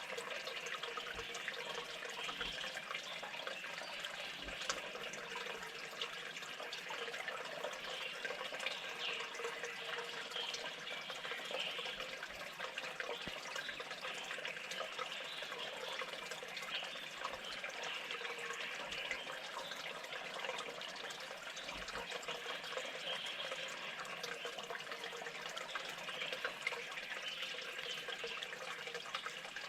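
Steady running water, an even splashing hiss that keeps on without a break.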